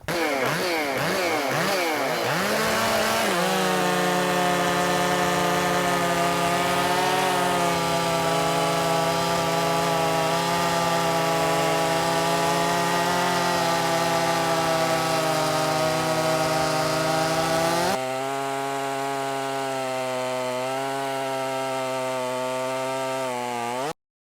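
Ported Makita 5600 two-stroke chainsaw revving up, then running flat out in a cut with its pitch holding steady under load. About eighteen seconds in, the sound drops suddenly in level and runs on steadily until it cuts off abruptly near the end.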